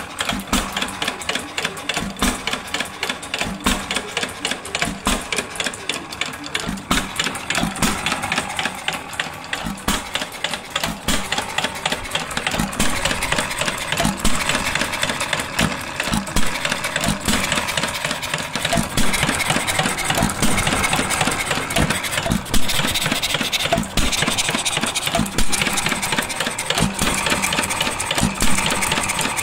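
Bluffton Ideal 3/4 hp hit-and-miss engine running, a fast, regular clatter of beats from the engine and its valve gear.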